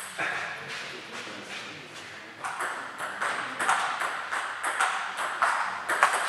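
Table tennis balls clicking off the table and rubber bats in quick, irregular pings, echoing in a large sports hall, with the clicks coming thicker from about halfway as a serve and rally start.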